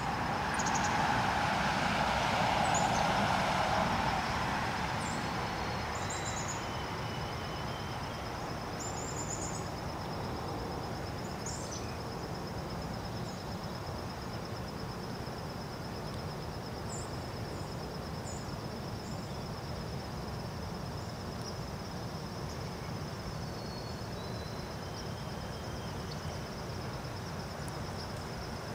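Outdoor field ambience: an insect trilling steadily and high, a few short bird chirps, and a low rushing background noise that is louder for the first few seconds and then settles.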